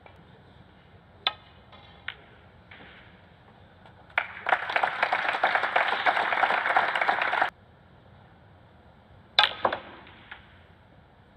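Snooker balls clicking sharply as the cue ball is struck and hits the object balls. Then several seconds of audience applause that cuts off abruptly, and another sharp click of balls near the end.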